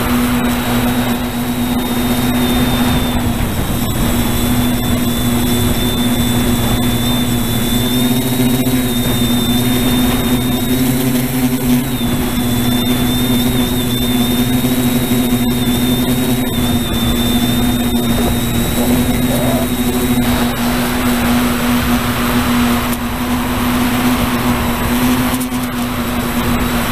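Multirotor drone's electric motors and propellers running in flight, heard from the aircraft itself: a steady hum with a thin, slightly wavering high whine over a rush of air.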